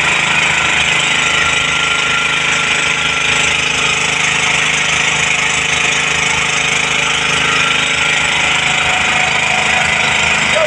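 Fire hoses spraying water with a loud, steady hiss, over the steady hum of an engine running, most likely the pump that feeds the hoses.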